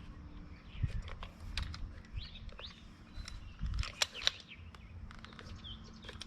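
Scattered sharp metal clicks and taps, with a couple of dull thumps, from hands working a steel band clamp onto a rubber hose. Birds chirp in the background.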